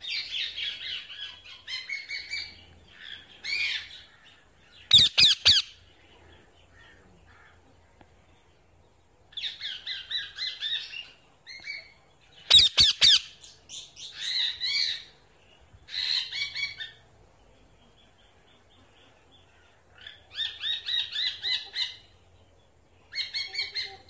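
Parrots squawking and chattering in bursts of rapid repeated calls, separated by short quiet gaps. The two loudest, sharpest calls come about five seconds in and about twelve seconds in.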